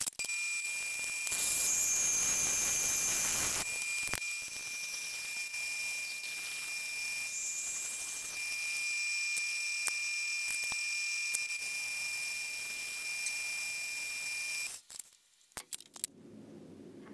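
A power machine tool running with a steady high whine over a hiss, machining a block of aluminium; the hiss is loudest for a couple of seconds near the start, and the machine stops abruptly near the end.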